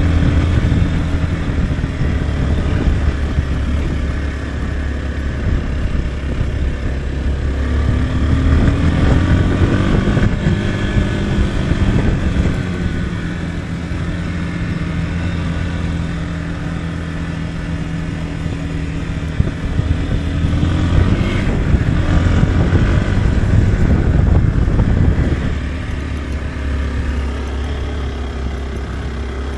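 Motorcycle engine running steadily under way, its pitch climbing twice, about a third and about two thirds of the way through, then settling lower near the end.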